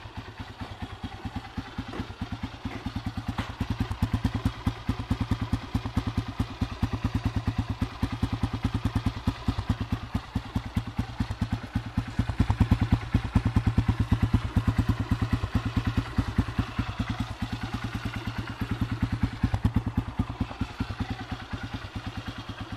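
Honda CRF150F's single-cylinder four-stroke engine idling steadily while it warms up after a cold start, an even, rapid chain of exhaust pulses. It is louder about halfway through.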